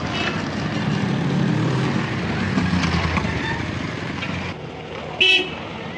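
Street traffic going by with a low rumble that eases off after about four seconds, then a short, loud ringing hit about five seconds in.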